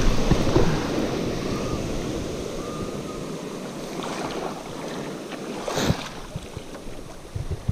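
Shallow surf washing up over the sand at the water's edge, loudest at the start and fading as the wash runs back, with wind on the microphone. A brief sharp noise about six seconds in.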